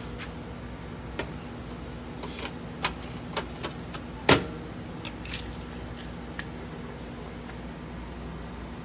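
A steady machine hum with a few scattered light clicks and knocks, the loudest a sharp knock about four seconds in.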